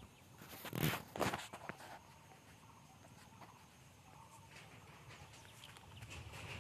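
Footsteps and rustling through leafy undergrowth, loudest in two sharp brushes about a second in, then a faint background hush.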